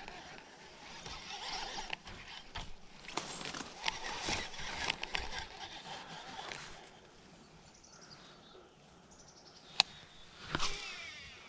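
Baitcasting reel cranked by hand to retrieve the lure, its gears whirring with the handling noise of the rod and reel, for about the first seven seconds. Near the end a sharp click, then a short burst of noise.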